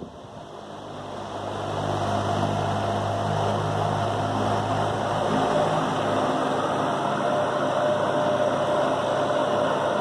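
Loren Sid Turbo 60 wall fan with a 200 W copper-wound motor, running steadily at medium speed: a rush of air with a low motor hum and a faint steady whine. It dips at the start as the wind buffeting on the microphone stops, then builds back over the first two seconds.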